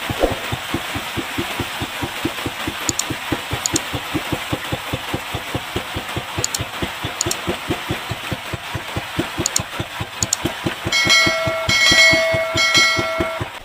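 Small wooden fishing boat's engine running at an even putter of about five or six beats a second, under a steady hiss of heavy rain. Pairs of short clicks sound now and then, and near the end a bright chime rings three times, from a subscribe-button animation.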